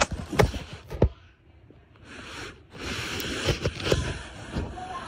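Handling noise from a phone: a few knocks in the first second, then, after a short lull, a rustling, scraping hiss with small clicks as fingers cover and rub against it.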